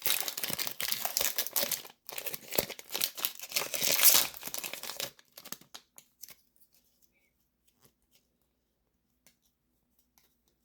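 Foil wrapper of a Pokémon trading-card booster pack crinkling and tearing as it is opened, in two spells of crackling over about five seconds. After that, only a few faint ticks.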